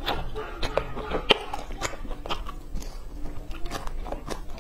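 Close-miked chewing of pan-fried food, with wet mouth noises and irregular sharp crunches and clicks about three times a second.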